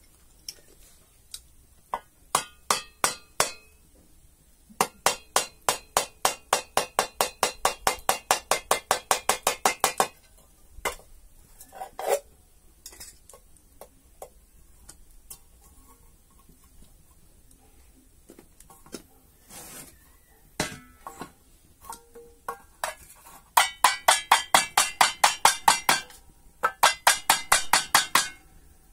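A small tin can struck again and again with a tool: rapid runs of sharp metallic taps, about five or six a second, each ringing briefly. Scattered single knocks fall between the runs.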